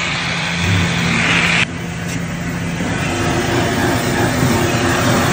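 High-pressure spray hissing against the greasy sheet-metal of a kitchen exhaust duct and hood, over a low steady hum. The hiss changes abruptly about a second and a half in, then carries on.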